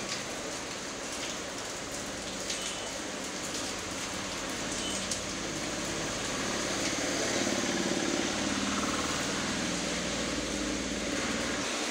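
Steady rain falling on wet paving, with a few sharper drop taps. From about four seconds in a low engine rumble builds up under the rain and is loudest a little past the middle.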